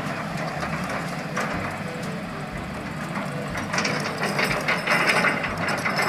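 Diesel engine of a concrete mixer truck running on a work site. The sound turns louder and more rattly a little past halfway.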